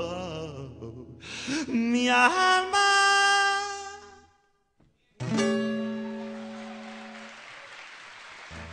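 Live acoustic guitar and voice closing a song. A long sung note slides up, is held, and stops about four seconds in. After a short silence a single final guitar chord rings out and slowly fades.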